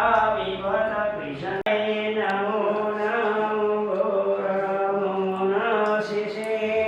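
A priest chanting Sanskrit mantras in a steady, sing-song recitation held close to one pitch, with a brief dropout about a second and a half in.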